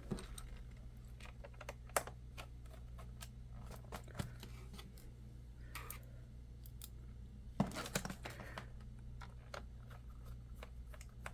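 Scattered light clicks and taps of a screwdriver and small screws on a laptop's plastic bottom cover as the screws are put back in, over a faint steady low hum.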